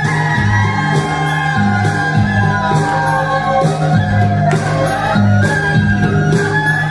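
Folk-style dance music with a singer over a repeating bass line and a steady beat, with people shouting and whooping along as they dance.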